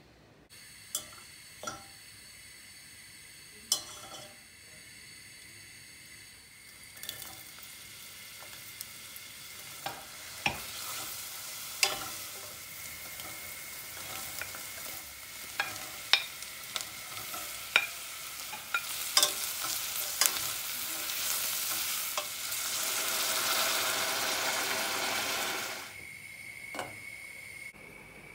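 Chopped onion and carrots sizzling in oil in a stainless steel pot, stirred with a wooden spatula, with sharp clicks of utensils against the pot. The sizzle grows louder and cuts off suddenly near the end.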